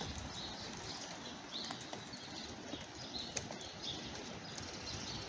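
Steady hiss of light rain outdoors, with small birds chirping over and over and a few sharp ticks.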